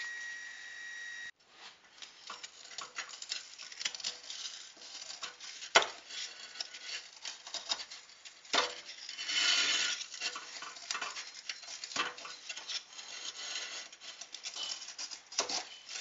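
Drilled cores of soft refractory kiln brick being pried and snapped out by hand: crumbly scraping and rubbing, with a few sharp snaps as cores break free.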